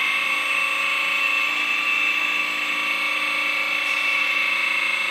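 Hydraulic pump of a 1/14 JDMODEL EC360 V2 RC excavator running with a steady high-pitched electric whine, with no added engine sound, as the boom and arm are raised.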